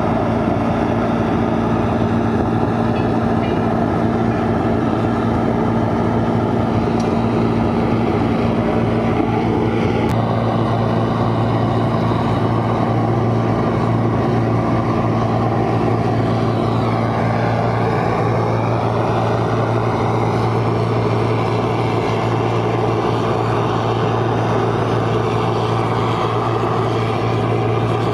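A machine's engine running steadily with an even low hum, the kind of plant that works alongside rail welding.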